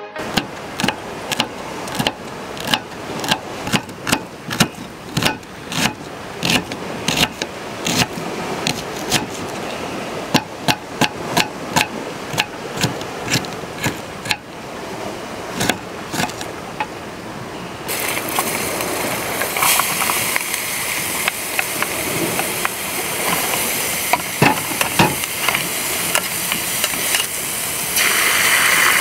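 A knife chops onion on a wooden cutting board, sharp taps about two to three a second. About halfway through this gives way to the steady sizzle of onions frying in a camping pot, which gets louder near the end as a dark sauce is poured in.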